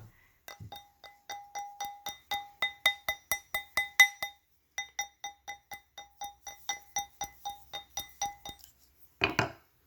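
Rapid light hammer taps on a metal ring mandrel, about three to four a second with a short break midway, each tap ringing out at the same bell-like pitch, as a thin wire ring is trued round.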